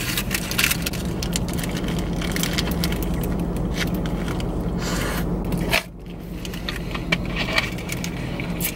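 Steady hum of a car's engine and ventilation running, heard inside the cabin, with small handling and crinkling clicks on top. The hum drops suddenly about six seconds in.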